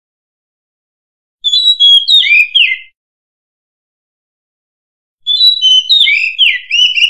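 Oriental magpie-robin singing: two short phrases of varied whistled notes that slide up and down. The first comes about a second and a half in, and the second starts about five seconds in and runs on at the end.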